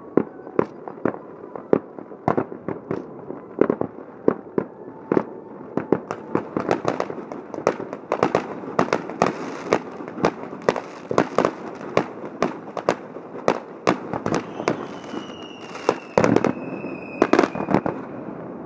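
Fireworks launching and bursting: a quick, irregular string of sharp bangs and pops, several a second. Near the end a thin whistle falls slowly in pitch, and two heavier bangs stand out.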